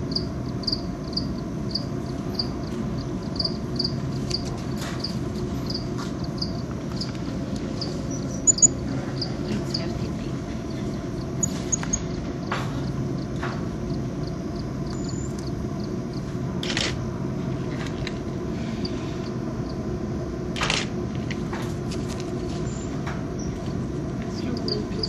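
Steady low background hum, with a short high chirp repeating about twice a second for the first ten seconds and a few scattered clicks and brief rustles.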